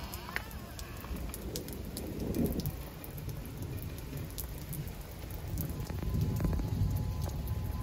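Rain falling, with scattered sharp drop hits over a steady low rumble that swells about six seconds in.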